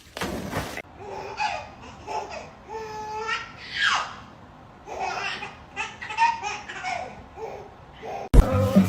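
A person laughing hard in repeated bursts, after a short rush of noise at the start. The laughter cuts off abruptly near the end as music comes in.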